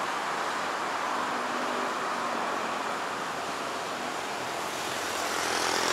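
Steady hiss of road traffic with a faint engine hum, growing a little louder near the end.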